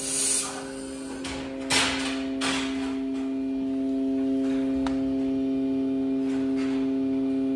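Steady hum of several fixed tones from a running fiber laser welding machine with a built-in water chiller, a little louder after about two seconds. A few knocks and rustles come in the first three seconds, the sharpest about two seconds in.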